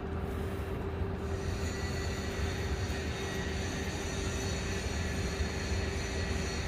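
Engine running steadily: a low rumble under a constant hum, with a thin high whine joining about a second in.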